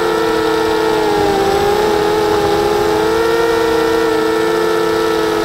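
Electric motors and propellers of a 250-size FPV racing quadcopter whining in flight, heard loud and close from its onboard camera. Several close-pitched tones drift slightly up and down as the throttle changes.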